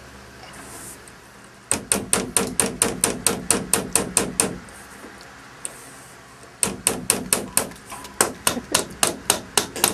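Hammer driving nails into thin, cheap wood panelling, in two fast runs of evenly spaced blows, about five a second, with a pause of about two seconds between them.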